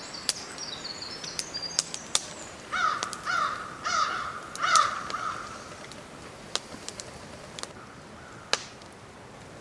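A crow cawing about four times in quick succession, a few seconds in, with scattered sharp clicks around it.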